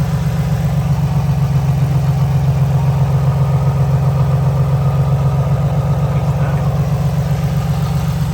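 2006 Nissan 350Z's 3.5-litre V6 idling steadily with an even, rapid pulse. Cylinder 5's ignition coil has just been plugged back in, but the coil connectors on cylinders 4 and 6 are still swapped, so the engine is still running with a misfire.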